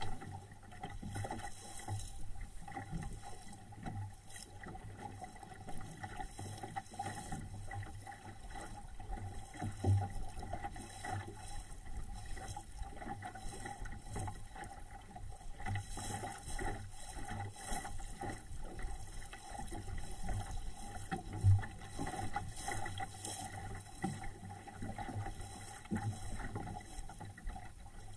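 Water slapping and splashing against the hull of a small SCAMP sailboat under way, with irregular low knocks, the loudest about ten seconds in and again a little past twenty seconds.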